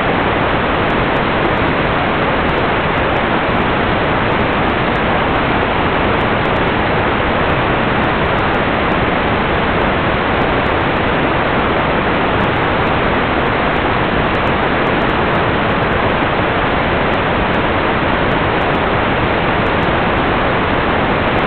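Steady, loud static hiss from an analog video receiver picking up no signal, with no tones or rhythm in it.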